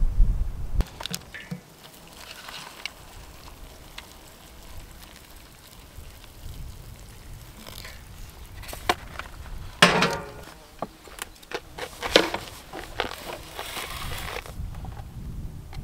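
Meal-preparation handling sounds: scattered clicks and taps on an enamel plate and the crinkle of a foil lid being peeled off an instant-food cup. There are two louder knocks about ten and twelve seconds in, over light wind rumble.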